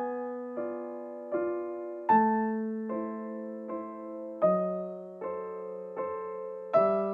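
Piano music: sustained chords struck about every three-quarters of a second, each ringing and fading, with a stronger chord roughly every two and a half seconds.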